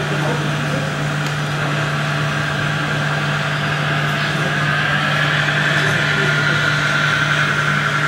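Radio-controlled model construction machines running: a steady low hum throughout, with a motor whine that rises slowly from about halfway in.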